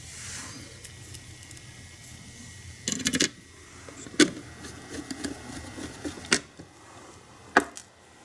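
Small tools and parts being handled on a workbench during electronics repair: a quick cluster of clicks about three seconds in, then single sharp taps about four seconds in and near the end, over a faint steady hum.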